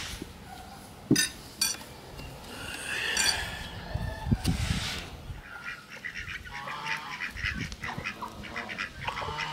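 Domestic ducks, geese and chickens feeding on a scrap pile, with many short quacks, honks and clucks repeating through the second half. Two sharp knocks come a little over a second in.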